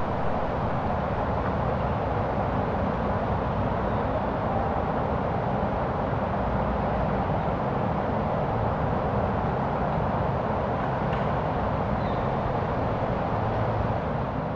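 A steady, even rushing rumble with no clear tone or rhythm, beginning to fade near the end.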